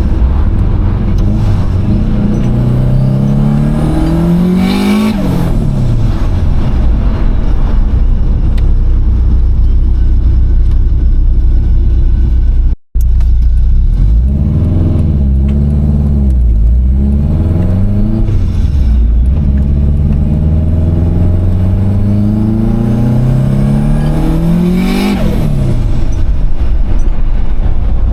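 Subaru WRX turbocharged flat-four engine pulling hard, its pitch climbing steadily through the revs and then falling sharply as the throttle closes, twice, with shorter rev-ups in between. There is no blow-off valve, so the boost released on each lift-off comes out as turbo flutter. The sound cuts out briefly about halfway through.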